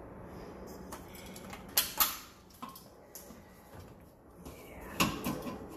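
Sharp metallic clinks and taps of a screwdriver and screw against a water heater's sheet-metal draft hood, two loud ones close together about two seconds in and another near the end.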